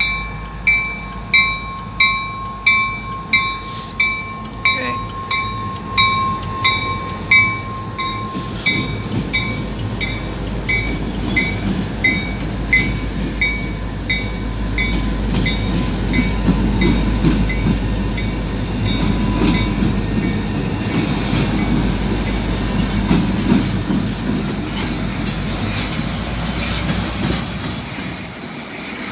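Loaded coal train passing close by behind EMD SD40-2 diesel locomotives, whose 16-cylinder two-stroke engines rumble as they go past. For the first nine seconds or so a bell rings nearly twice a second and fades. Then the engine rumble and wheel clatter on the rails grow and fill the rest, with a faint high wheel squeal near the end.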